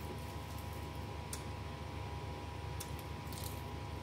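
Close-miked eating by hand: a few sharp, wet clicks from mouth and fingers as rice and salted fish are chewed, one about a second in, another nearly three seconds in and a quick cluster just after, over a steady low hum.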